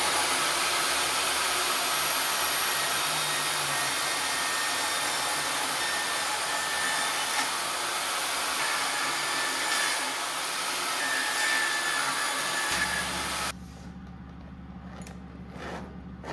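Jobsite table saw running and ripping a quarter-inch sheet of dense wear plastic: a loud, steady blade-and-motor noise. It cuts off abruptly about three seconds before the end, followed by a few light clicks as the cut plastic strips are handled.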